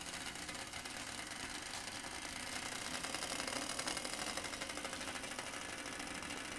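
Water boiling in a titanium cup over a homemade Super Cat alcohol stove: a steady, fast bubbling rattle along with the burner's flame.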